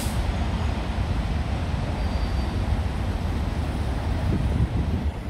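Steady city traffic on a wet street, with a strong low rumble under it. A sharp click comes right at the start.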